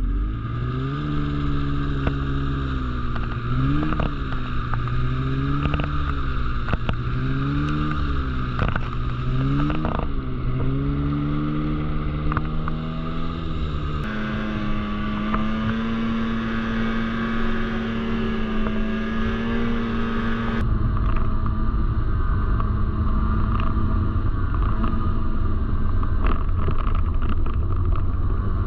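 Snowmobile engine running, its pitch rising and falling over and over in the first ten seconds or so as the throttle is worked, then holding steadier, with a few short knocks.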